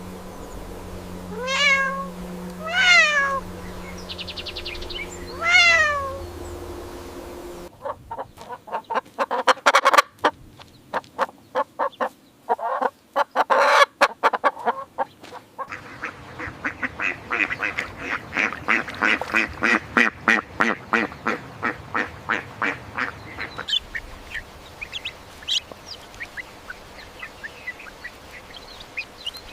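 A series of different animal calls: first three separate calls that rise and fall in pitch, then a stretch of sharp, rapid calls, then a long run of fast, evenly repeated pulses, ending with a few sparse chirps.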